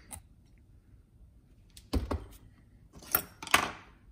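A power drill stops right at the start, then a few handling knocks follow: a thud about two seconds in and two sharp clacks a second later, as the drill bit comes out of the aluminium fuel filter housing and the tool and part are handled.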